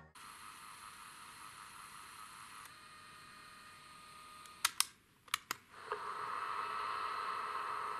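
Keys of a Sony M-450 microcassette recorder clicking as they are pressed, a few sharp clicks about halfway through, between stretches of faint tape hiss. About a second after the last click the tape starts playing, and a steadier, louder hiss comes in.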